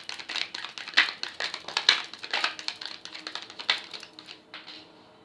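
Oracle cards being shuffled by hand: a rapid, irregular patter of card snaps and flicks that thins out and stops about four and a half seconds in.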